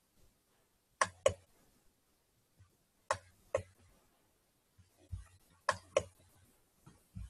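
Computer mouse button clicking: three pairs of sharp clicks about two seconds apart, with a couple of soft low thumps in between.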